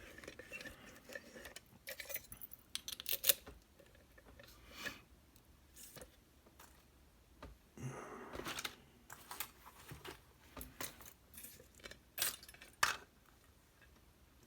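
Irregular small metal clicks, clinks and short scrapes from an M&C Condor lock being disassembled by hand after picking, its parts and tools knocking together. The sharpest clicks come about three seconds in and again near the end.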